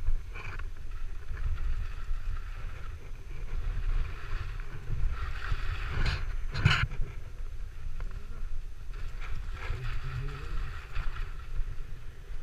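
Wind rumbling on the microphone, with several hissing swishes of skis sliding over snow, the loudest about six seconds in.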